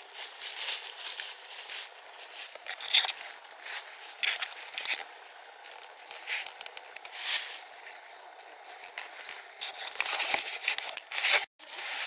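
Irregular crunching and rustling of footsteps through dry leaf litter, with leaves and twigs brushing past. The sound cuts out abruptly for a moment near the end.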